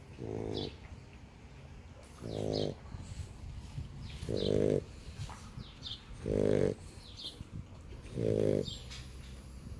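French bulldog snoring in its sleep: a short snore on each breath, evenly spaced about every two seconds, five in all.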